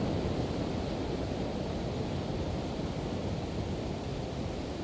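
Pacific Ocean surf washing on the beach, a steady low rush of breaking waves, with some wind on the microphone.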